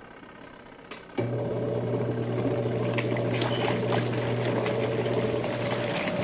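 Zeny portable washing machine washing a load: its motor hum, steady and even, with water swishing in the tub. The hum comes in suddenly about a second in, after a quiet start.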